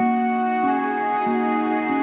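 Soft instrumental background music, a slow melody of held notes changing about every half second.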